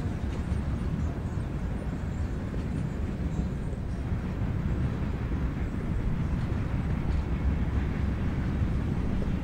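Distant freight train rolling by, a steady low rumble of moving cars.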